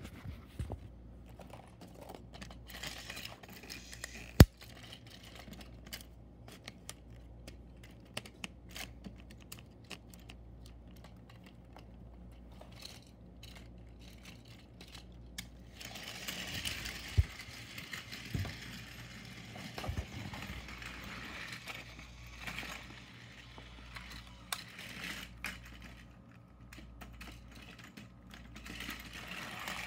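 Hard plastic clicks and rattles as a Plarail toy train and its blue plastic track are handled, with one sharp click about four seconds in. A stretch of rustling and clattering runs through the middle.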